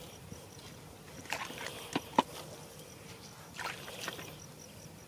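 Splashing and sloshing in shallow muddy water in a few short spells, with one sharp click about two seconds in.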